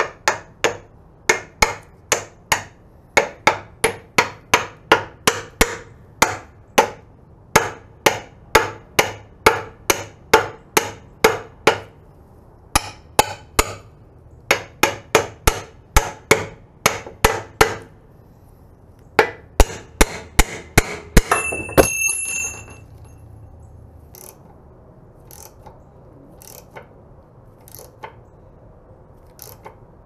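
Small hammer tapping repeatedly on the steel bearing and housing of a power rake, about two sharp metallic taps a second with short pauses. The taps speed up for a few seconds, then a brief high metallic ring follows. Only a few faint knocks come after.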